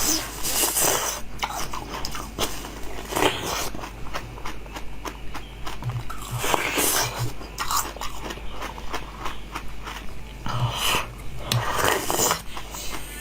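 Close-up crunchy biting and chewing of food, with irregular sharp crackles and crunches throughout, over a steady low hum.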